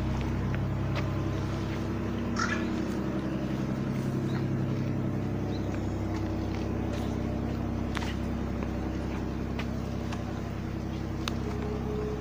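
A steady low mechanical hum with a few faint clicks scattered through it.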